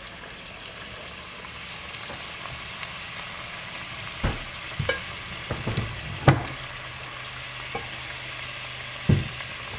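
Samosas deep-frying in hot oil in a stainless steel pot, with a steady sizzle. A metal wire skimmer and tongs knock against the pot several times, loudest about six seconds in.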